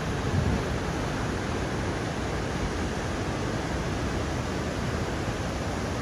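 Waterfall: falling water making an even, steady rushing noise.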